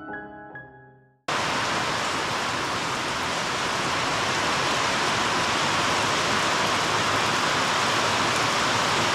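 Piano music fading out, then about a second in a sudden cut to the steady hiss of heavy rain pouring down.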